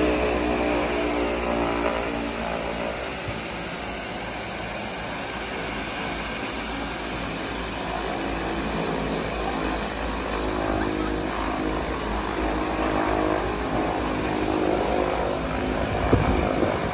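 Twin-engine turboprop plane running its propellers at taxi power while it turns on the runway end to line up for takeoff. A steady propeller and turbine drone with several held tones, easing slightly, then building again toward the end.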